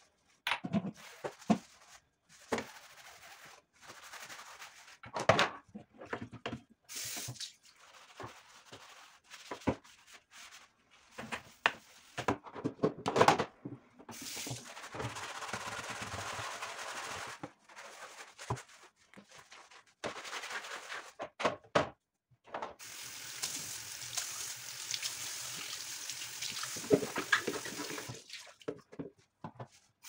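Dishwashing at a kitchen sink: plastic containers and a plastic cutting board knocking and clattering against the sink, with the tap running in several long stretches.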